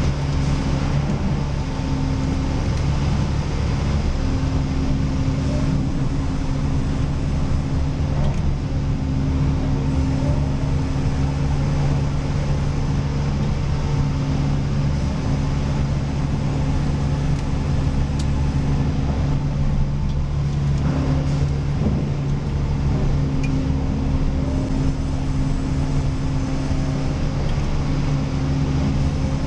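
Sawmill machinery running steadily with a constant low drone, and a higher hum that comes and goes every few seconds.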